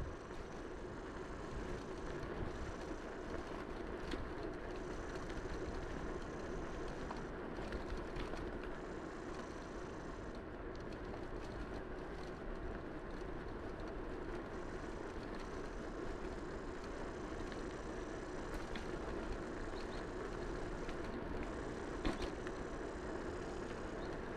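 Steady rolling noise of a Tern HSD bicycle ridden along a paved path, tyre rumble mixed with wind on the microphone, with one brief sharp click near the end.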